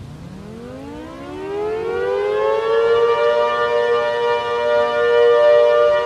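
Civil defense warning siren winding up, rising in pitch over about three seconds, then holding a steady wail. A fainter, lower tone joins partway through.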